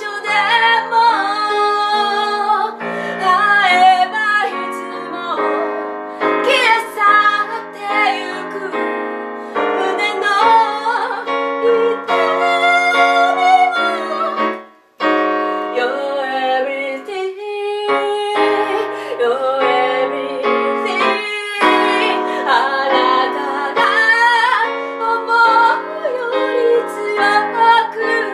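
A woman singing a slow pop ballad live, accompanied on an electronic keyboard played with a piano sound. The music breaks off for a moment about halfway through, then resumes.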